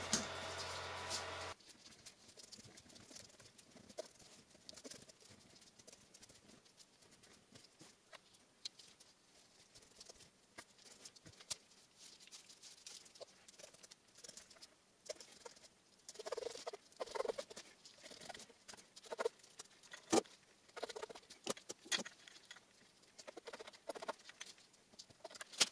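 Quiet handling noises of hand work: scattered light clicks, taps and rustles, busier in the second half, with a steady machine hum that cuts off about a second and a half in.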